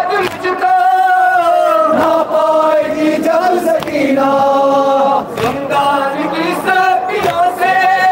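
A crowd of men chanting a noha, a Muharram lament, in unison, with long held notes.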